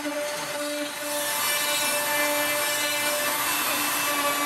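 CNC router spindle running with a steady whine while the bit mills end-grain ash. The cutting hiss gets louder about a second in and then holds.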